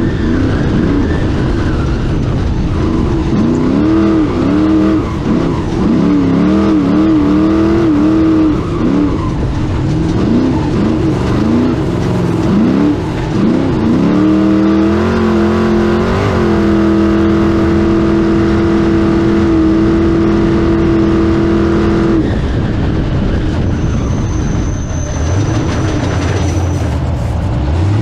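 Off-road race car's engine heard from inside the cab, revs rising and falling rapidly for about the first half. It then holds steady at high revs for several seconds and drops to a lower, quieter run about 22 seconds in.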